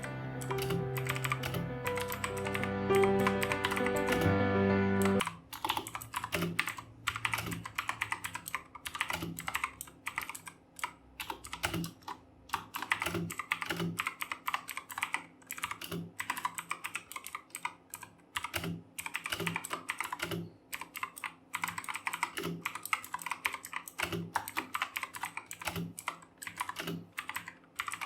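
Fast typing on the Redgear Chameleon mechanical keyboard with clicky Kailh Blue switches: a quick, uneven stream of key clicks. Background music plays under the typing for the first five seconds and then cuts off suddenly.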